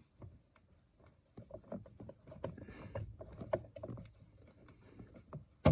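Long Phillips screwdriver turning a screw by hand, with scattered small clicks and creaks as the screw binds, and a sharp click near the end; the screw is cross-threading.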